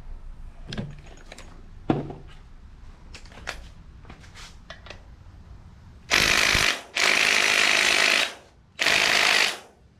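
Cordless electric impact wrench hammering in three bursts, a short one, a longer one of about a second and a half, then one of under a second, on the 14 mm flywheel bolts of a Subaru EJ257 engine; the small impact lacks the torque to break them loose. Light metal clicks and knocks come before the bursts.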